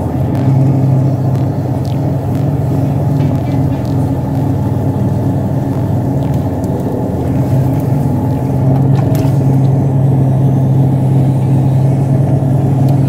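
Pottery wheel running with a steady low hum while a large, hard lump of wet red earthenware is centred and opened on it by hand.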